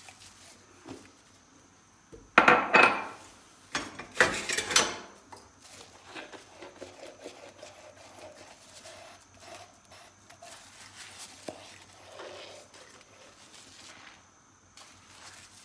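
Dishes and cutlery clinking and clattering as they are handled during hand washing, with two louder bursts of clatter a few seconds in, then lighter, scattered clinks.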